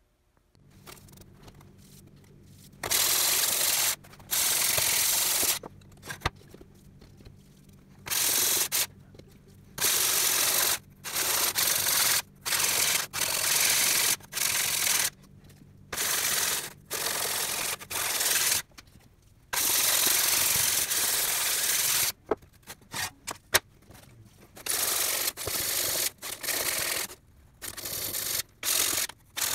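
A round hand-held abrasive puck scraped back and forth along the steel blade of a rusty crosscut saw in repeated strokes. The strokes grow shorter and quicker near the end.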